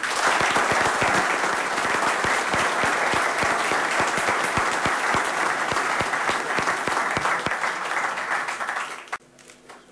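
Audience applauding: dense, steady clapping from a roomful of people that cuts off suddenly near the end.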